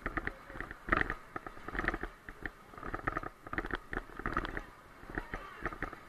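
White-water rapids splashing around an inflatable raft, with irregular splashes about once a second over a steady low rumble of wind buffeting the microphone.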